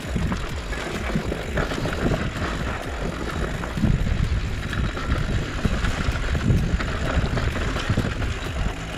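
Mountain bike descending a rough downhill dirt trail: a steady rumble of tyres over the ground with the bike rattling and knocking over bumps, and wind rushing over the camera microphone.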